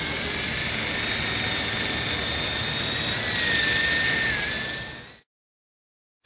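Silverlit Sky Blaze toy radio-controlled helicopter: the high steady whine of its electric motor and the whir of its rotor as it lifts off and hovers just above the ground. The pitch wobbles slightly, and the sound fades out about five seconds in.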